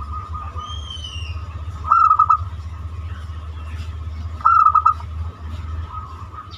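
Zebra dove (perkutut) cooing: two short phrases of quick staccato notes about two and a half seconds apart, over a steady low hum. A brief falling high whistle from another bird comes about a second in.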